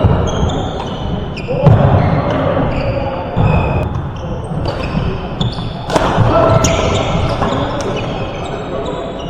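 Badminton doubles rally in a large sports hall: sharp cracks of rackets hitting the shuttlecock and short high squeaks of court shoes on the floor, with voices and footfalls in the background.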